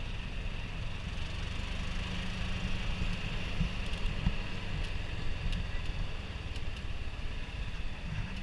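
Steady low wind rumble on the microphone over the running noise of a slow-moving open vehicle, with a faint steady high whine and a few light ticks.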